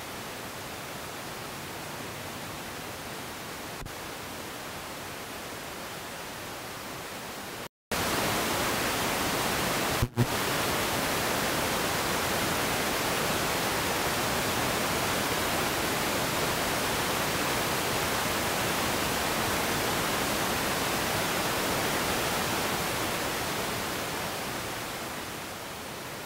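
A steady, even hiss like static, with no engine note to be made out. It cuts out completely for a moment about eight seconds in, comes back louder with a single click shortly after, and eases back down near the end.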